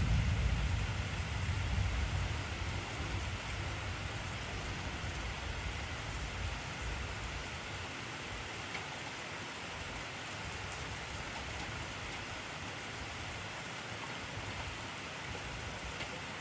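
Heavy rain falling steadily, an even hiss of many drops. A deep low rumble fades away over the first several seconds.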